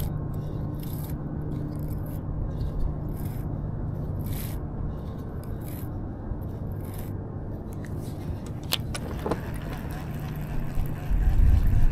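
Braided fishing line being pulled by hand off a backlashed baitcasting reel: a run of short scraping rasps, one every half second to a second, over a steady low hum. There is a single sharp click near the end, followed by a low rumble.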